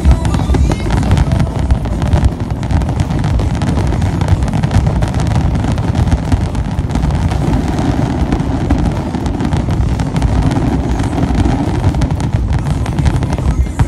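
Fireworks barrage: many aerial shells bursting in rapid, overlapping booms and crackles over a heavy low rumble.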